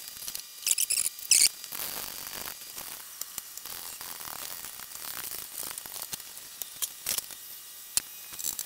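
Light clicks and scraping as the Gorton 9J milling machine's spindle is raised up into the mill head, with a few sharper metallic clicks about a second in.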